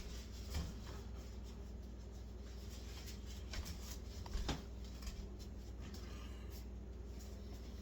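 Paper napkins being pulled and rustled, with a few soft taps and rustles scattered through, over a steady low hum.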